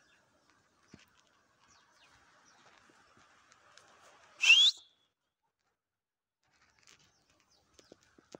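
One short, sharp whistle rising quickly in pitch, about halfway through; the rest is quiet.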